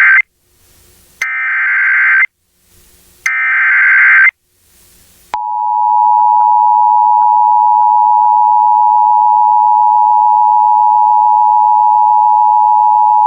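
Emergency Alert System SAME header bursts: short, loud bursts of digital data tone about a second each, the end of one and then two more, with gaps of about a second between them. About five seconds in, the EAS two-tone attention signal starts and holds steady and loud to the end.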